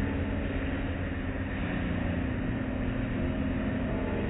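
Automatic car wash heard from inside the car: cloth wash strips scrubbing across the windshield and body under spraying water, over a steady low hum.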